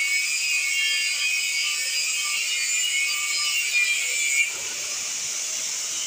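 Angle grinder's abrasive cut-off disc cutting through the steel shell of a hermetic refrigerator compressor, a steady high-pitched grinding. About four and a half seconds in, the disc comes off the metal and the grinder runs on without cutting.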